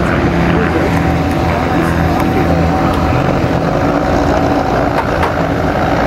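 Race biplane's piston engine running on the ground with the propeller turning, a steady, loud engine note that wavers slightly in pitch.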